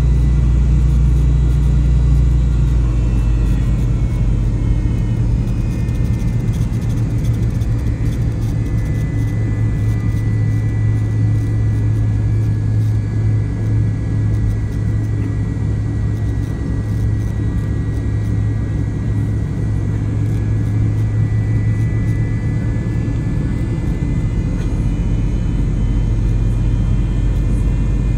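Cabin noise of a McDonnell Douglas MD-88 taxiing onto the runway: a steady low rumble from its tail-mounted Pratt & Whitney JT8D engines at taxi power and the rolling wheels, with a faint steady whine above it.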